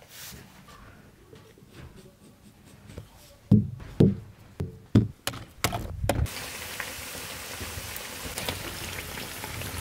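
A knife chopping down through a round of dough onto a metal tray, about seven knocks in quick succession, then a wood fire burning with a steady hiss and small crackles.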